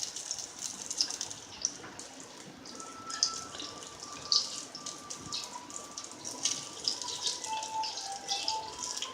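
Prawn pakodi fritters deep-frying in hot oil: a steady sizzle with irregular crackling pops as the batter cooks.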